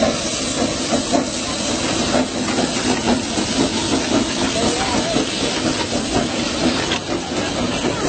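Narrow-gauge passenger train running past close by: a loud, steady hiss with scattered faint clicks from the passing carriages.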